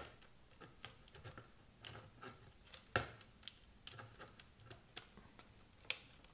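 Plastic housing shells of a Siemens hand mixer clicking and knocking against each other as they are handled and the connecting tab is worked into place, with three sharper clicks: at the start, about halfway and near the end.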